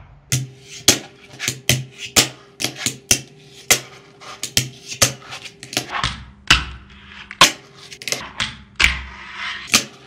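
A fingerboard on YTrucks popping, flipping and landing on a wooden desk: a quick, irregular run of sharp wooden clacks and knocks, with a short scrape near the end.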